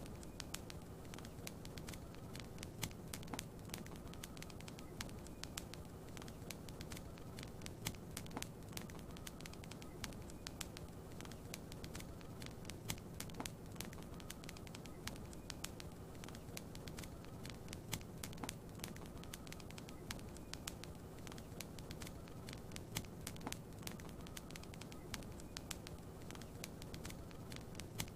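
Wood fire crackling in a fireplace: many sharp pops and snaps at irregular intervals over a steady low rumble.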